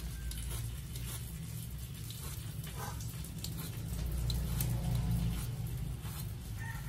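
Knife slicing chunks off a hand-held luffa gourd, with soft taps and clicks as the pieces drop into a stainless steel colander, over a steady low hum.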